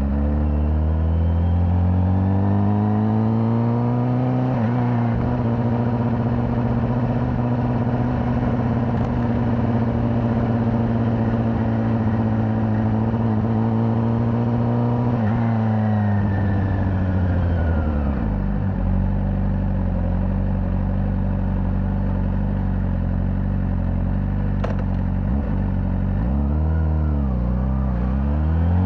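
Honda CBR600RR's inline-four engine through its stock exhaust, heard from the rider's seat. It climbs in revs, holds a steady cruise, drops off about fifteen seconds in, and runs lower for a while. Near the end it dips and then climbs again.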